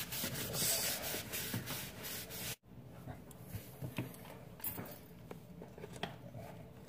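Paper towel wet with rubbing alcohol scrubbed back and forth over the wooden underside of a cabinet, a steady stroking rub that stops abruptly about two and a half seconds in. After that come only faint scattered clicks and handling noises.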